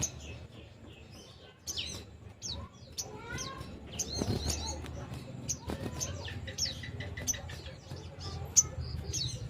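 Little spiderhunter (sogok ontong) calling: a rapid series of short, sharp, high chirps that sweep downward, with a short run of lower repeated notes about two-thirds of the way in, over a steady low hum.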